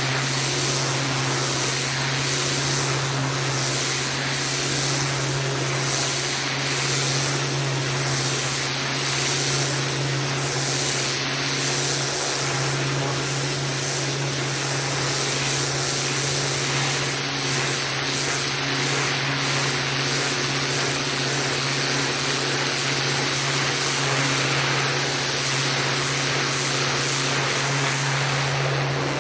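Pressure washer running steadily: a constant low hum under the even hiss of the high-pressure water spray.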